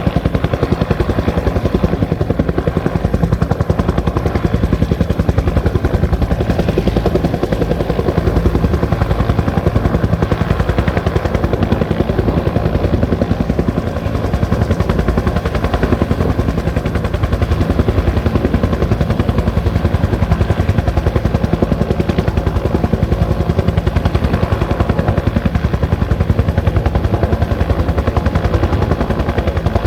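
Bell 205 helicopter running steadily: the fast, even beat of its two-blade main rotor over the drone of its single turboshaft engine.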